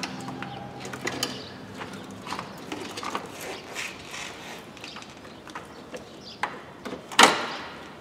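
Hands working the plastic clips and shroud of a BMW E46's electric air-conditioning condenser fan loose: irregular clicks, knocks and rattles of plastic parts, with one louder clatter about seven seconds in. This is the old fan being freed for removal.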